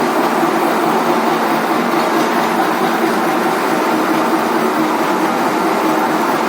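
A lathe with a milling attachment running steadily while it mills a triple-start thread on a shaft: an even, continuous machine drone with faint steady tones in it.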